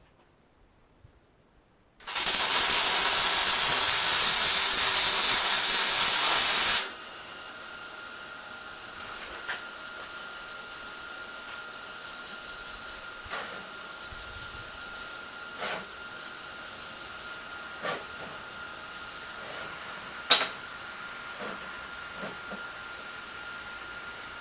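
A loud, steady hiss that starts about two seconds in and cuts off sharply about five seconds later, followed by a quiet steady background with a faint thin whine and a few light clicks.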